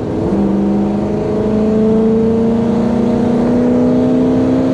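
Toyota 1UZ-FE 4.0-litre V8 pulling under throttle, heard from inside the car's cabin. Its note rises slowly and steadily as the car accelerates.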